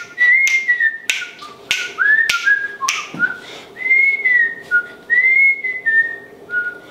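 A man whistling a bouncy tune in short gliding phrases, with sharp snaps keeping the beat through the first half.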